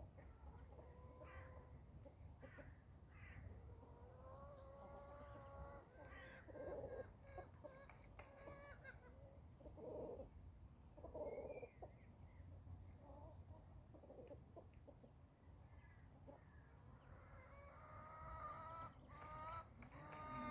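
Chickens clucking and calling faintly, with short clucks and several drawn-out calls, the longest around four to nine seconds in and again near the end.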